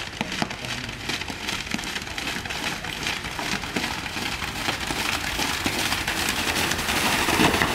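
Water splashing and spraying as a pair of racing buffaloes and their runner charge through a flooded mud track, a dense patter of splashes that grows louder near the end as they come close.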